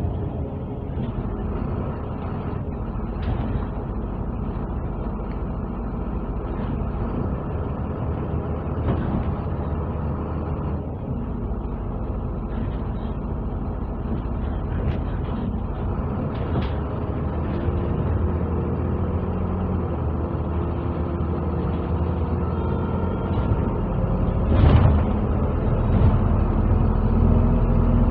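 A MAZ-203 low-floor city bus heard from inside the passenger cabin while under way: the engine hums steadily under road noise, with scattered light rattles. About 25 seconds in there is one loud thump, and over the last few seconds the engine grows louder and rises in pitch as the bus speeds up.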